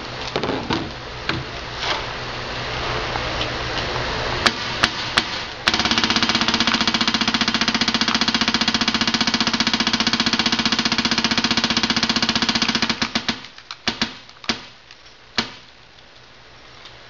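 Electronic paintball marker fitted with a Virtue Mini OLED board firing: a few single shots, then about six seconds in a very fast, even stream of shots lasting about seven seconds, then a few more single shots.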